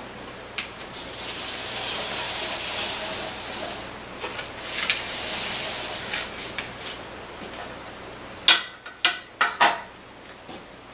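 Sheets of paper rustling and sliding on a tabletop as they are handled. Near the end comes a quick cluster of four or five sharp clinks of a Petri dish and its lid being knocked and set down.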